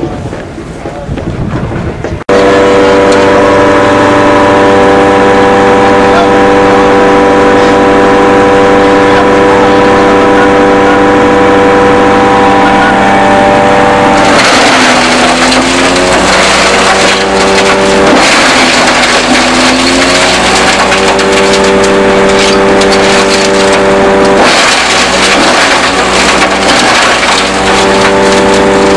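Coconut husk shredder with a 38 HP engine running at high speed, starting suddenly about two seconds in. Three times the engine's pitch sags and recovers as husks are fed in and it slows under load, with a loud crackling of husks being torn apart in the shredder.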